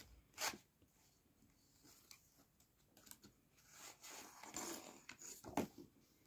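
Paper pages of a children's sticker book being handled and turned: faint rustling and light taps, with a soft swish about half a second in and a longer rustle near the end.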